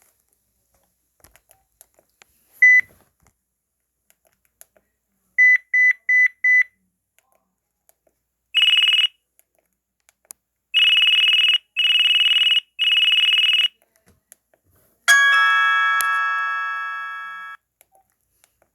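LG enV3 cell phone playing a series of short electronic alert tones: a single beep, then four quick beeps, then a rough buzzy tone once and three times in a row, and finally a bright chime that fades out. Faint clicks fall between the tones.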